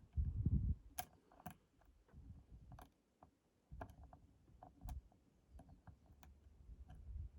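Faint, irregular small metal clicks and scrapes of a dimple pick and tension wrench working the pins of a 5-pin AZBE dimple lock, with a brief low rumble of handling at the start. The pins are being set one by one as the core moves ever so slightly.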